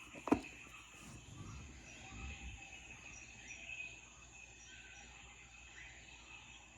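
Jungle-sounds ambience recording: steady insect chirring with occasional small bird chirps. A sharp click sounds just after the start, and a few low knocks follow about two seconds in.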